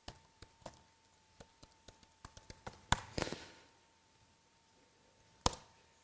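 Laptop keyboard keys tapped singly and sparsely as a password is typed. About three seconds in comes a louder click with a short rush of noise, and near the end another sharp click. A faint steady whine runs underneath.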